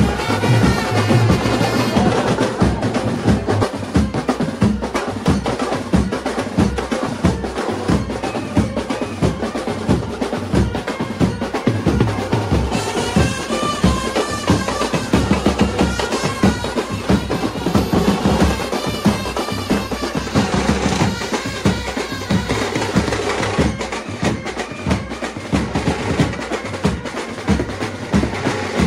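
Procession brass band playing: a fast, steady beat on snare and bass drums, with trumpets carrying a wavering tune through the middle stretch.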